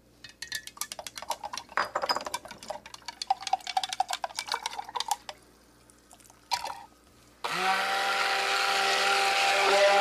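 Quick clicking and clinking of a stirrer in a ceramic pitcher for the first five seconds or so. Then, about seven and a half seconds in, a stick (immersion) blender switches on and runs steadily with a motor whir, blending cold process soap batter.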